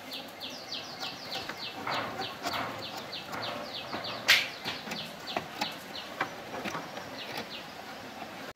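A rapid series of short, high chirps, about four to five a second, each dipping slightly in pitch, from a small animal. Scattered light clicks and knocks run under it, with one sharp click about four seconds in.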